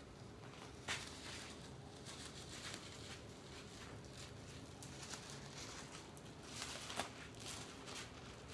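Faint ambient hiss with a few scattered soft clicks and rustles, the sharpest a tick about a second in and another near seven seconds.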